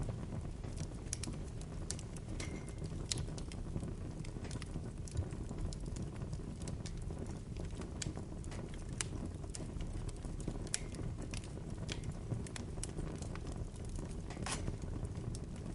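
Bonfire of burning wood crackling: irregular sharp pops and snaps over a steady low rumble of the flames, with one louder pop near the end.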